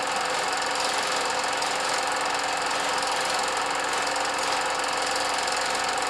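Steady, fast mechanical clatter over an even hiss and a constant low hum.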